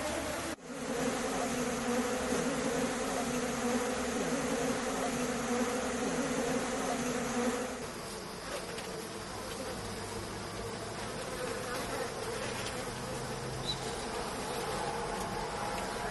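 A dense mass of dwarf honey bees buzzing steadily around their exposed comb as they are brushed off it. About halfway through, the buzz drops in level and becomes lower and thinner.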